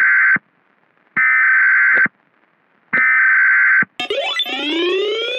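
Emergency Alert System SAME header data bursts: a harsh buzzing digital tone sent in bursts just under a second long, cut off by short silent gaps, three in all. About four seconds in, a rising synthesized glide of several tones begins.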